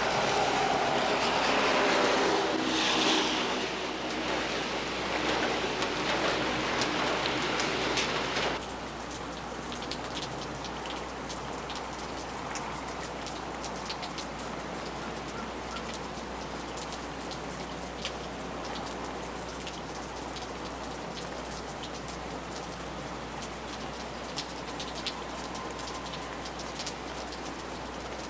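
Steady rain falling on a porch and pavement, with scattered sharp drips from the eavestrough. For roughly the first eight seconds a vehicle passes on the wet road, a louder hiss of tyres with a falling engine note, which cuts off suddenly.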